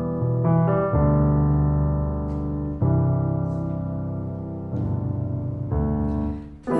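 Background music: slow, sustained piano chords that change every second or two and fade briefly near the end.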